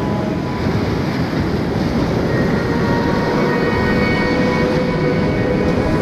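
Whitewater rapids rushing steadily around a kayak, picked up close by a camera on the boat.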